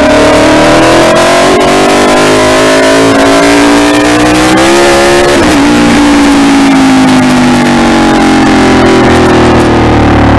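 Aprilia Tuono V4 motorcycle's V4 engine accelerating, its pitch climbing, then dropping abruptly at an upshift about halfway through. After that the revs fall slowly as the throttle eases. Wind rushes over the microphone throughout.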